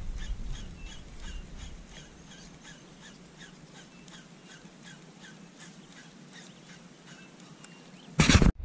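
A faint, steady run of short high chirps from a wild animal, about three a second. Near the end, a sudden loud burst of noise for a fraction of a second.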